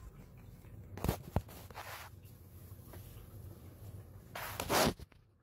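Handling noise as a phone camera is moved about: two quick knocks about a second in, then rustling, with a louder rustle of fabric and movement near the end.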